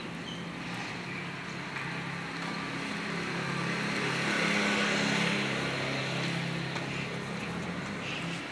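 Motor vehicle engine passing close by: a steady hum that grows louder to a peak about halfway through, then fades.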